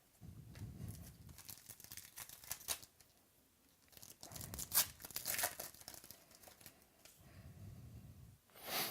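Trading cards and a foil card-pack wrapper being handled: crinkling and tearing in three stretches, with a sharper swish near the end.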